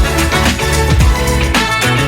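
Upbeat funk-style electronic background music with a steady drum beat, a bass line and held chords.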